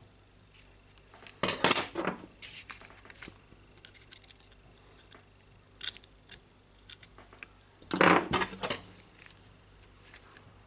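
Small metal parts of a Makita reciprocating saw's blade clamp clinking and scraping against the saw blade as they are fitted by hand. There are scattered light ticks, with two louder spells of clatter, about a second and a half in and again about eight seconds in.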